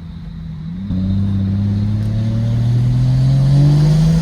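Car engine accelerating hard: about a second in it gets louder, then its pitch climbs slowly and steadily in one long pull through a gear.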